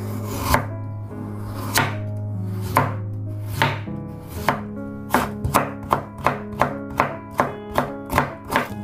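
A chef's knife chopping through Korean radish onto a wooden cutting board. A few separate cuts about a second apart, then a quick even run of about four cuts a second from about five seconds in, as the slices are cut into matchsticks.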